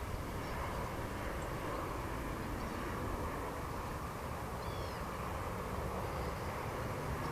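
Steady outdoor background of low rumble and hiss, with a few faint high bird chirps about two-thirds of the way through.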